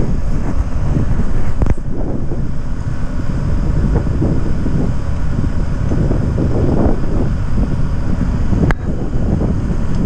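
Wind buffeting the microphone, a steady low rumble, with two short sharp knocks, one just under two seconds in and one near the end.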